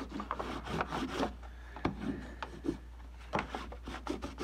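Brown paper bag crinkling and rustling as it is pressed and smoothed down over the oil pump's top face. A few sharp taps from a ball-peen hammer marking the gasket outline on the paper.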